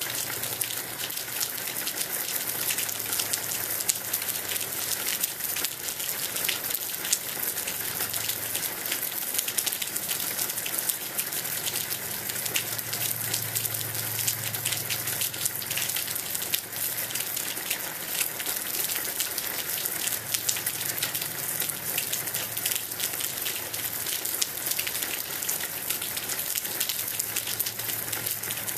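Steady rain falling, a dense patter of individual drops hitting without a break.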